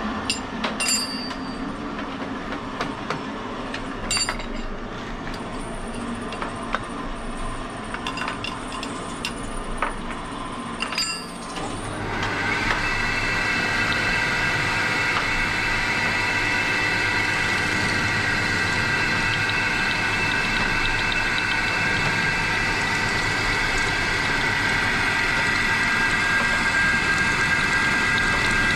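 Workshop machinery humming with a few sharp metal clinks. About twelve seconds in, a vertical milling machine's end mill is cutting a metal pistol part clamped on a rotary table: a louder, steady cutting noise with a held high whine.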